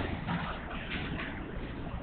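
Marker strokes scratching on a whiteboard over a steady background rumble of room noise.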